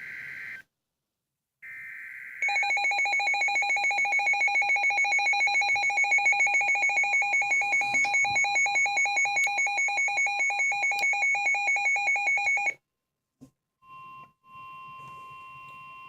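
Emergency Alert System tones announcing a severe thunderstorm warning: two short data bursts of the SAME header, then a loud, rapidly pulsing alert tone for about ten seconds that cuts off suddenly. After a short pause a steady single alert tone begins.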